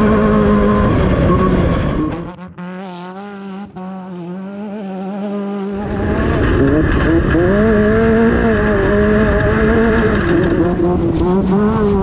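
Class 10 off-road race car's engine running hard over a rough desert track, its pitch rising and falling with the throttle. It drops away and turns thinner for a few seconds from about two seconds in, then comes back strongly.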